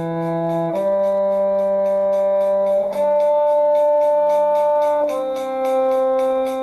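A string shifting exercise played as long, steady held notes: G, then a D harmonic an octave above the open D string, then C, each lasting about two seconds. A steady tick runs under them, about four times a second.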